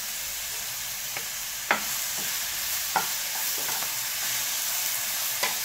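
Chopped pumpkin sizzling as it fries in hot oil in a non-stick pan, stirred with a wooden spatula that knocks sharply against the pan three times.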